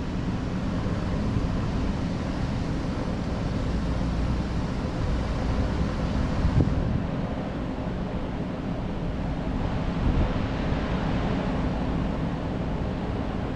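Steady wind noise on the microphone over a low hum, with a faint knock about six and a half seconds in.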